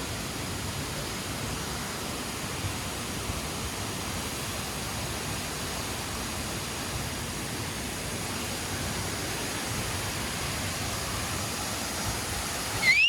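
Waterfall: a steady, even rush of falling water. A short rising whistle sounds near the end.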